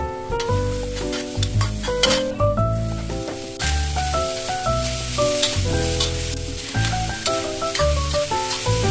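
Food sizzling in a hot pan as it is stirred, the sizzle growing louder about three and a half seconds in, over background music with a steady bass beat.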